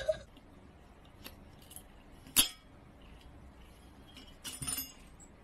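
Light clinks of small hard objects: a few faint ticks, one sharp clink about two and a half seconds in, and a short rattle of clinks near the end.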